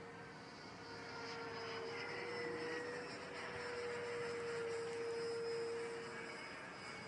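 Electric ducted-fan motor of a radio-controlled BAE Hawk model jet whining in flight overhead, a steady tone that swells from about a second in and fades near the end.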